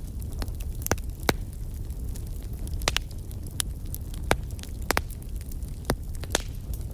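Burning wood fire crackling: irregular sharp pops and snaps, a dozen or so, over a steady low rush of flames.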